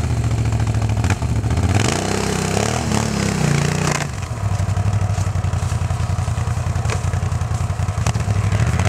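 ATV engines running loud and close, with revs rising and falling about two to four seconds in, then holding steady.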